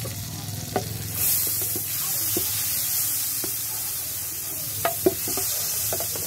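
Garlic margarine sizzling as it melts in a nonstick frying pan, the sizzle swelling about a second in. A plastic spatula stirs it, clicking and scraping against the pan several times.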